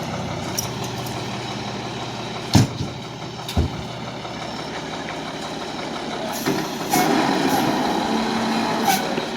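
Fire engine's diesel engine running, with two heavy thumps about two and a half and three and a half seconds in. The engine grows louder in the last few seconds.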